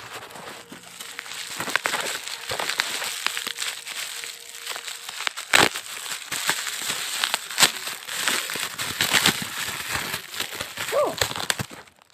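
Dense, rapid small clicks and crackling, with a few louder sharp clicks along the way.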